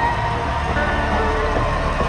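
Music with short held notes over a steady low rumble.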